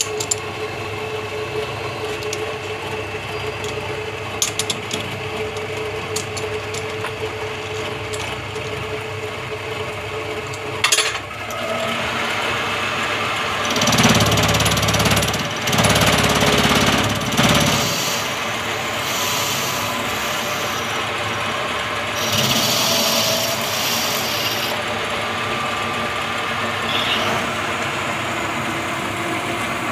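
Metal lathe running and cutting a part, a steady machine hum with light clicks, then louder stretches of cutting noise about halfway through and again a little later.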